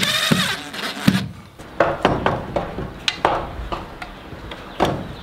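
Cordless drill whining briefly as it drives a screw, stopping about half a second in. Then a string of separate knocks and clunks as someone climbs a fiberglass step ladder.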